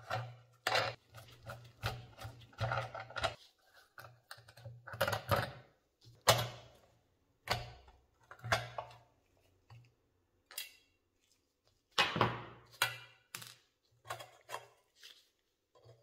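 Irregular clicks, taps and knocks of hand tools and small metal parts being handled, some with a short ring.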